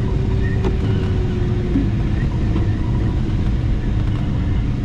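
Steady rush of airflow and wind noise in the cockpit of a Ventus cT glider on final approach, with a faint thin whistle that sinks slightly in pitch.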